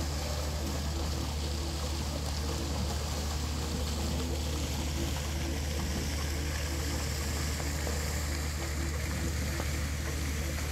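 Pond fountain jets splashing steadily, over a low steady hum.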